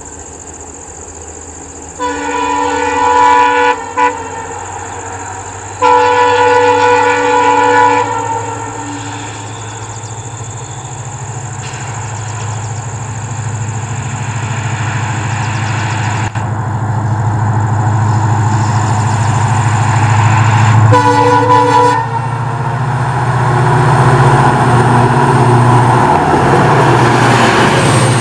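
WDP4B diesel-electric locomotive's multi-tone horn sounding in several blasts: two long ones with a short toot between, then another about fifteen seconds later. Under them, the rumble of its EMD 16-cylinder two-stroke engine and the rush of the train grow steadily louder as it approaches at speed, loudest near the end.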